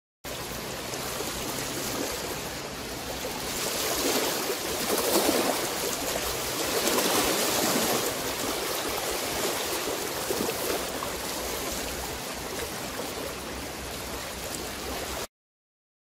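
Small waves washing onto a pebble lakeshore: a steady rushing wash that swells a little about four and again about seven seconds in. It starts and stops abruptly.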